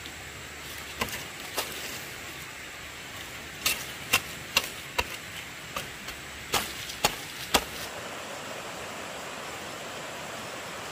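A run of about a dozen sharp knocks, roughly two a second at their busiest, over a steady rush of running water.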